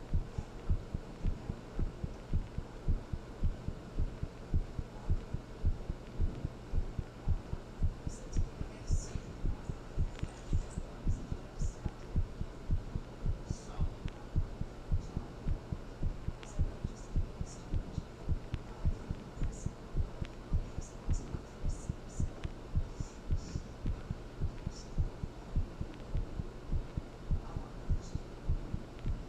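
Human heartbeat: a quick, even beat over a steady low hum, with faint scratchy ticks now and then.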